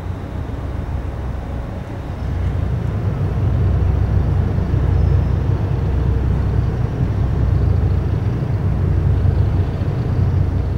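Tugboats' diesel engines running under load as they push a large LNG tanker, a steady low rumble that grows louder about three seconds in and then holds.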